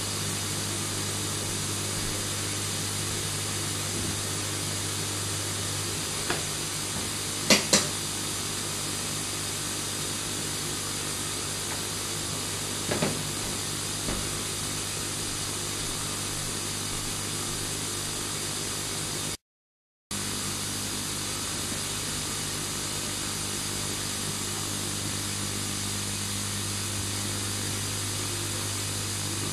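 Bath mixer tap running, water pouring steadily into a filling bath and churning up bubble-bath foam, over a steady low hum. A pair of sharp knocks comes about a quarter of the way in and a single knock a few seconds later. The sound cuts out completely for a moment about two-thirds of the way through.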